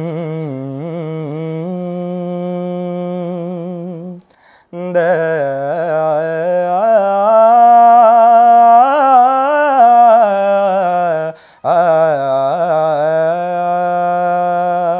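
A teenage boy sings a wordless opening to a song without accompaniment: three long held phrases with short breaths between them, the middle one louder and higher.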